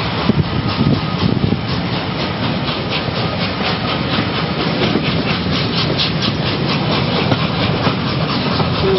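Steam-hauled train heard from an open coach window, the A1 Pacific 60163 Tornado at its head: steady rush of wind and wheel noise with a quick regular beat about four times a second, and a few heavier knocks in the first second or so.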